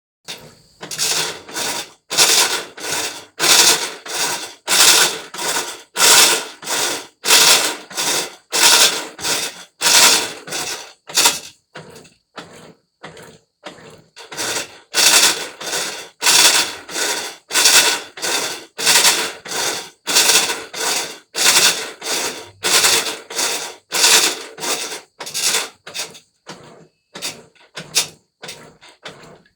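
Colormaq 11 kg washing machine agitating during the wash cycle, each back-and-forth stroke giving a loud rattling, grinding mechanical noise, about one and a half strokes a second. The strokes turn fainter for a couple of seconds near the middle and again near the end. This is the abnormal noise the machine makes while washing.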